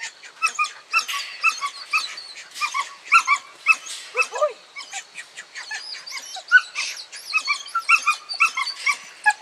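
Border collies whining and yipping excitedly: a rapid, unbroken run of short, high-pitched yelps.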